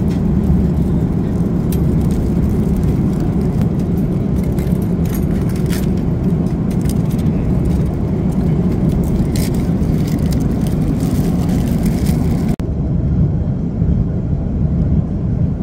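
Steady low rumble of a moving vehicle, with scattered light rattling clicks; a short break about twelve and a half seconds in, after which the rumble carries on.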